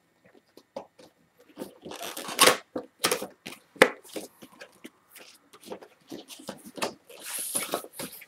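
Cardboard retail box handled and opened: taps and rustles of the carton and its flaps. There is a loud scrape about two seconds in, a sharp tap a little before four seconds, and a longer sliding scrape near the end as the white inner box is drawn out of the sleeve.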